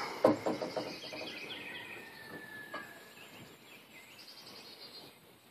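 Guinea fowl calling in a rapid, harsh chatter that thins out and fades after a few seconds, right after a sharp crack at the very start.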